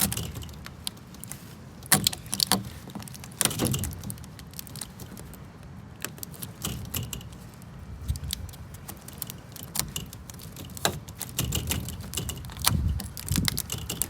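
Polycarbonate greenhouse sheet being cut through to free a rectangular hinge cut-out: irregular plastic clicks, snaps and knocks.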